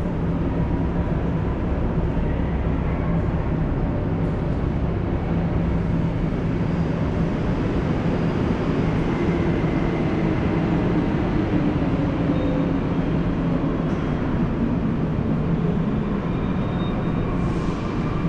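Steady low rumble of an underground metro station's concourse, with a few faint steady tones higher up and no clear single event.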